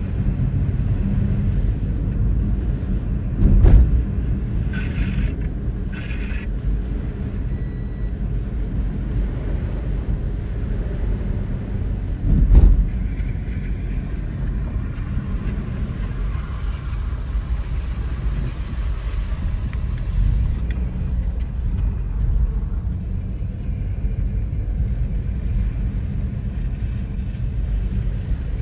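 Steady low rumble of a car driving along a wet road, heard from inside the car, with two short thumps, one a few seconds in and one about twelve seconds in.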